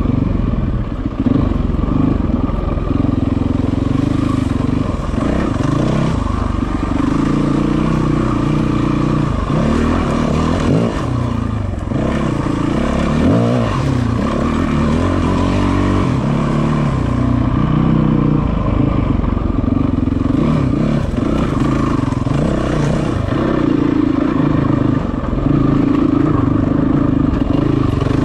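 Yamaha WR450F's single-cylinder four-stroke engine running as the enduro bike is ridden over rocky trail, the revs rising and falling with the throttle.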